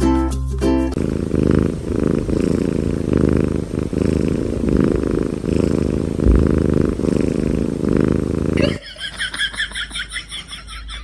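Grey kitten purring close up, a deep steady rumble that pulses with each breath. Near the end the purring gives way to a quieter, high, rapidly fluttering sound.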